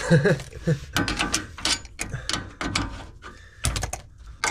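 Irregular metallic clicks and rattles of steel plates and a nut on a threaded rod being fitted against a wheel hub: the home-made puller that draws a new wheel bearing into the hub.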